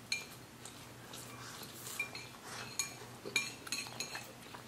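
Chopsticks clinking against plates while eating noodles: a handful of short, ringing clinks, mostly in the second half.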